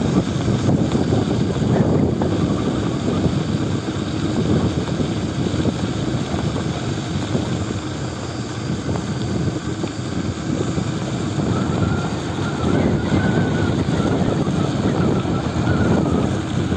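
Wind buffeting the microphone of a bicycle moving at speed downhill: a loud, steady, fluttering rumble. A faint thin whine comes in about twelve seconds in.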